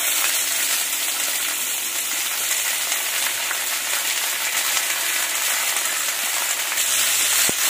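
Sliced onions sizzling steadily in hot oil in a pan as they are added by hand on top of frying dal, garlic and dried red chillies.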